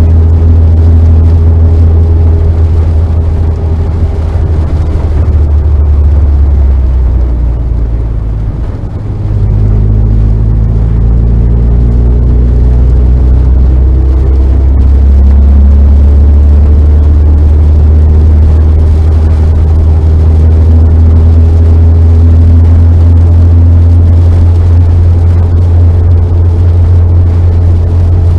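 Car engine and road noise heard from inside the cabin while driving on a circuit. A heavy low drone dominates, with the engine's pitch rising and falling. The sound dips briefly about nine seconds in, then rises again.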